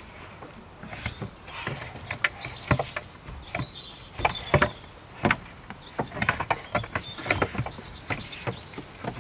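Large wooden bed panel being shifted and worked into place inside a car, giving irregular knocks, taps and scrapes of wood against wood and the car's interior, a few louder knocks near the middle.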